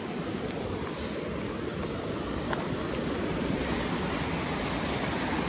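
Rushing mountain creek: a steady wash of flowing water that grows a little louder toward the end, as the creek comes closer underfoot.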